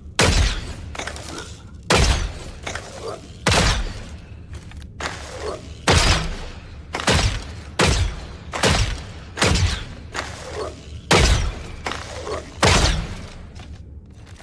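Bow-and-arrow sound effects: a rapid series of sharp shots or impacts, about one a second, each with a short ringing tail.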